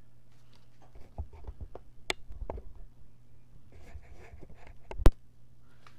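Handling noise from the camera being touched and adjusted: scattered light taps, clicks and rustling, then one sharp knock about five seconds in.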